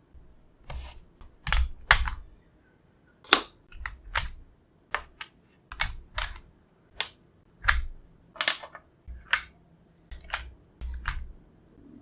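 Keys being pressed on an Akko ACR Pro Alice Plus acrylic mechanical keyboard fitted with Akko CS Crystal switches: separate sharp clacks at an irregular pace, about one or two a second, some in quick pairs.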